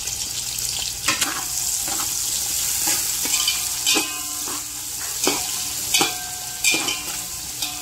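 Sliced onions sizzling in hot oil in a pot while a spatula stirs them, scraping and clinking against the pot about once a second, several strokes leaving a brief ring.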